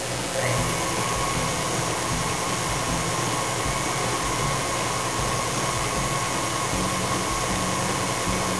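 Electric tilt-head stand mixer running at a steady speed, its motor whining as the beater mixes cake batter in the stainless-steel bowl.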